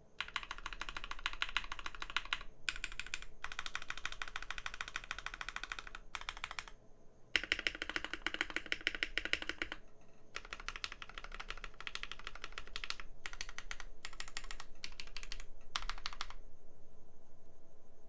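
Keychron K2 mechanical keyboard with Gateron Milky Yellow linear switches, an aluminum plate, stock keycaps and no dampening, typed on fast: rapid runs of key clacks broken by short pauses, stopping near the end.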